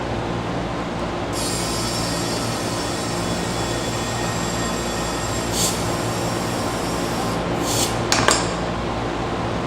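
Air compressor running steadily while a stiff go-kart rain tire is inflated on its rim. About a second in, a high, thin squeal begins and holds. Near the end come a few short sharp clicks, likely the tire bead working onto the rim.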